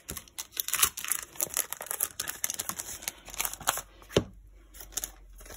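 Clear plastic sleeve of a sticker kit crinkling as it is opened and the paper sticker sheets are slid out: a rapid run of crackles, with one sharp click about four seconds in.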